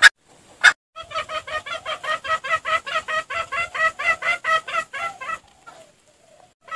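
Junglefowl lure call: two short, sharp notes in the first second, then a fast, even run of clucks, about six a second, that stops a little after five seconds in.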